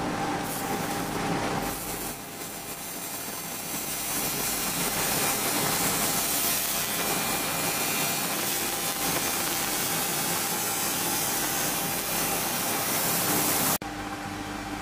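50 W pulsed fiber laser cleaner ablating rust off a steel plate: a steady, loud hissing crackle as the beam scans the surface, cutting off suddenly near the end and leaving the machine's steady hum.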